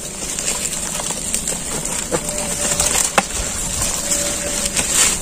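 Dry sticks and dry leaves rustling and clicking as they are piled by hand to lay a small fire, with a sharp click about three seconds in. A steady high-pitched hiss runs under it.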